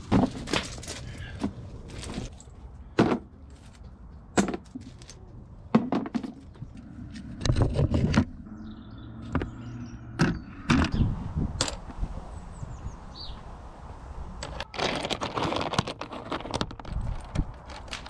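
Irregular knocks, clunks and scrapes of stones and slate being handled and set down, with footsteps on gravel; small birds chirp faintly in the middle.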